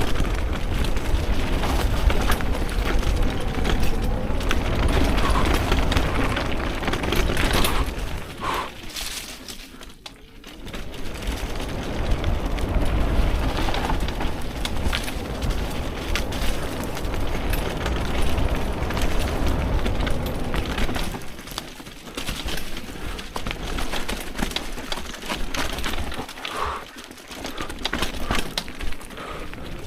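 Wind buffeting the microphone during a fast off-road ride, with tyre and trail noise beneath it; it drops away briefly about ten seconds in and again twice in the last third.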